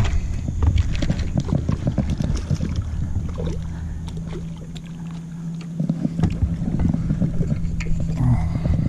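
Wind-driven water lapping and knocking against the hull of a small aluminium boat, with many short irregular taps, and a steady low hum that starts about three and a half seconds in.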